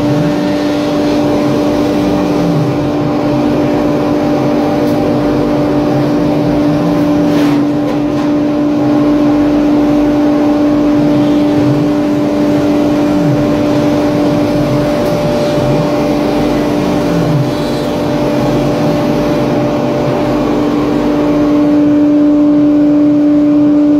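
CNC router's HSD electrospindle running with a steady high whine, while the axis drive motors rise and fall in pitch as the gantry speeds up and slows down between moves. There is one sharp click about seven and a half seconds in.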